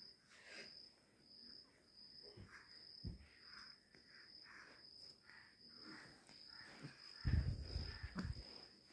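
A faint, steady high-pitched insect trill, typical of a cricket, runs throughout. Soft scattered rustles sit under it, and about seven seconds in comes a short stretch of low, muffled thumps and rustling.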